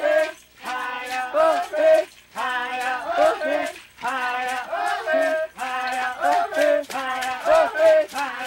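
A group singing a song in short phrases, with a hand rattle shaken in a steady beat.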